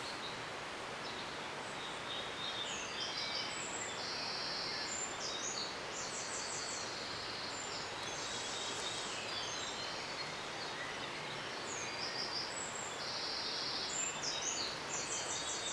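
A songbird singing short, high phrases again and again over a steady outdoor hiss.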